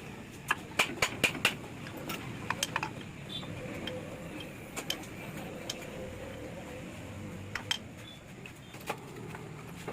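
Sharp metallic clicks and clinks of tools and engine parts being handled during motorcycle engine assembly: a quick run of about five in the first second and a half, then scattered single and double clicks.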